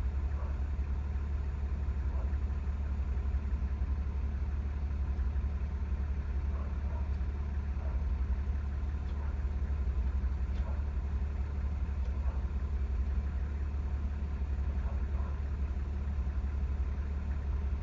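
Fire engine's engine idling steadily, a deep low hum with no siren sounding.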